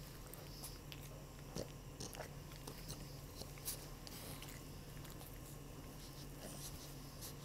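A pug's mouth and tongue making faint clicks and smacks, over a low steady hum.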